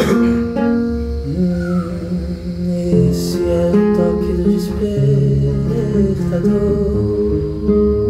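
Classical guitar played fingerstyle, plucked notes and chords ringing on, with a wordless vocal line hummed over it from about a second and a half in.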